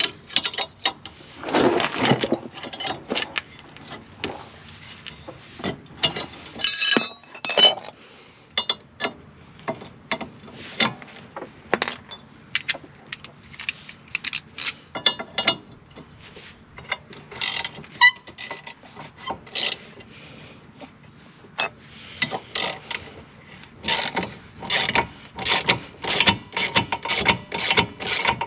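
Hand ratchet wrench clicking in repeated back-and-forth strokes as it loosens 17 mm bolts, with a ringing metallic clink about seven seconds in.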